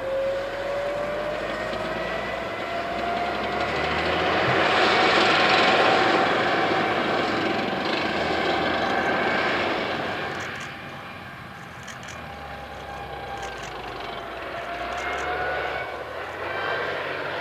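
Rheinmetall Lynx KF41 tracked infantry fighting vehicle driving off-road: its engine runs under load with a whine that slowly rises in pitch over a heavy rushing noise. The sound is loudest around five seconds in and quietens after about ten seconds as the vehicle moves farther off.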